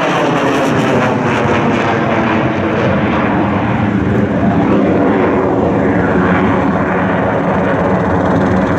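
F-16 Fighting Falcon's Pratt & Whitney F100 turbofan running in afterburner as the jet climbs away: a loud, steady jet roar whose tone sweeps up and down.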